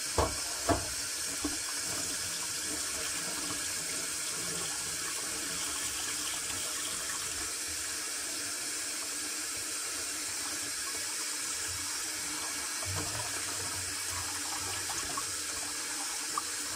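Kitchen tap running a steady stream into a stainless-steel sink as dishes and cutlery are rinsed under it, with two sharp knocks in the first second.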